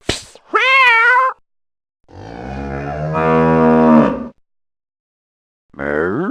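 A cat meows once, then a cow moos for about two seconds, growing louder. Near the end another call begins, rising in pitch.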